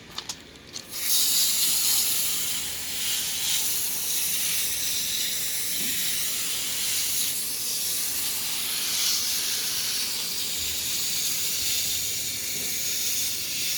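Garden hose spray nozzle spraying water onto the condenser coils of an outdoor air conditioner unit. A few clicks come first, then a steady hiss of spray begins about a second in.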